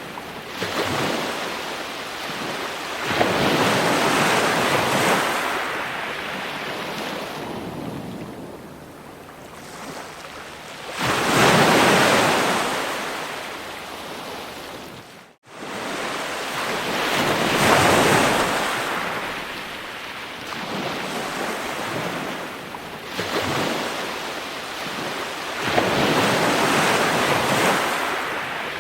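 Ocean waves breaking on a shore: each wave builds to a rush of surf and washes back, one every several seconds. The sound cuts out for a split second about halfway through.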